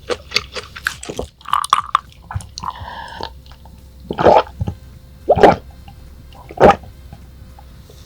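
Close-miked chewing of raw yellowtail sashimi: wet, squishy mouth and biting sounds with quick clicks, and three louder smacking bursts about four, five and a half and nearly seven seconds in.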